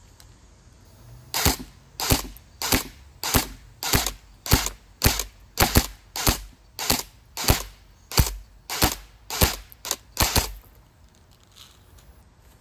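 High-powered airsoft rifle firing single shots in a steady series, about sixteen shots at a little under two a second, at a phone screen. The shots start about a second and a half in and stop a couple of seconds before the end.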